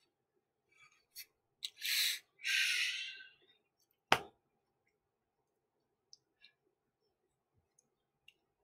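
A few short hissing noises, then one sharp click about four seconds in, followed by a few faint ticks.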